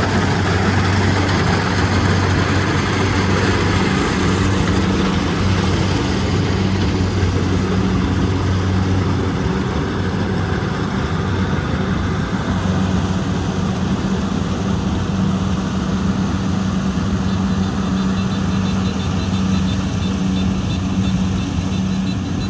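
Kubota rice combine harvester's diesel engine running steadily with a constant low drone, under the dense noise of the machine at work.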